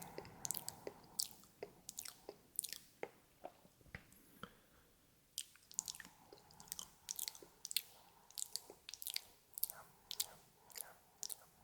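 Close-miked ASMR mouth sounds: wet clicks, smacks and nibbling noises made with the lips and tongue, coming irregularly several times a second.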